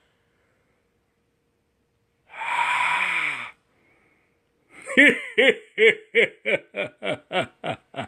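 A man's voice gives a long wheezing gasp, then a quick run of short laughs, about four a second, that get shorter as it goes on.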